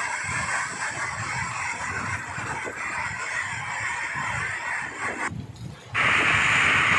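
Heavy rain pouring down in a dense, steady hiss; the sound cuts out briefly about five seconds in and comes back louder.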